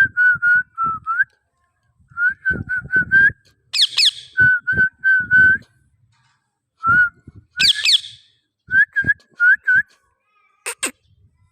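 Pet parrot whistling runs of short, clear notes of about the same pitch, several a second, broken twice by a sharp, shrill squawk.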